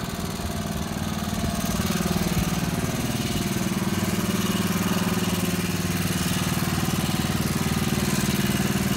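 An engine running steadily with a low, even hum, growing slightly louder over the first couple of seconds and then holding.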